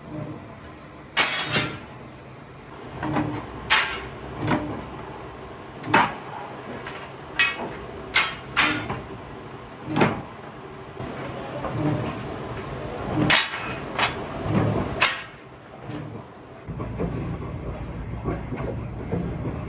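Irregular metal clanks and knocks from steel plate and scrap being handled and struck, about a dozen spread unevenly, then a steadier machine rumble near the end.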